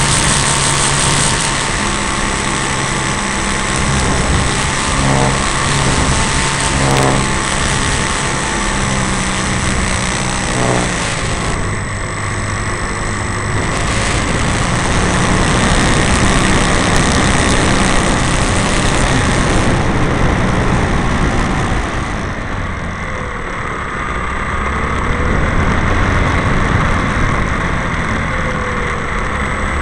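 Radio-controlled Piper model plane's motor and propeller, heard from a camera riding on the airframe, running steadily with a rush of air noise; the level eases off briefly twice as the throttle changes.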